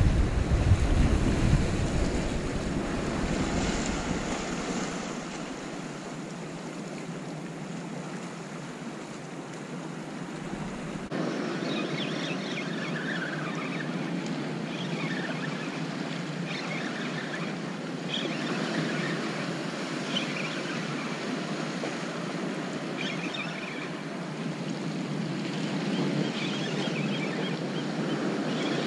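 Ocean surf washing over and around shoreline rocks in a steady wash, with wind buffeting the microphone as a low rumble for the first few seconds.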